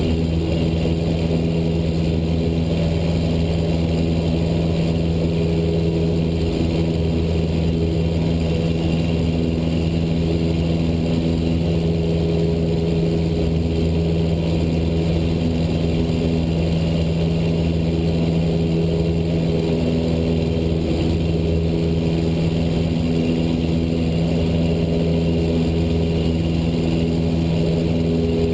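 Cessna 172 Skyhawk's piston engine and propeller droning steadily, a constant low hum with an unchanging pitch.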